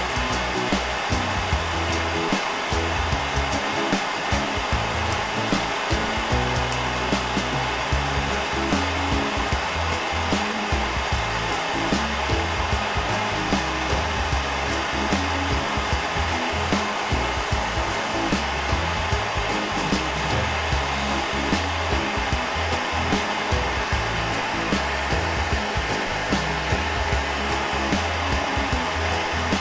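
Lopet propane bench burner with a concentrated flame running with a steady, unbroken hiss during glass bead lampwork. Background music plays under it.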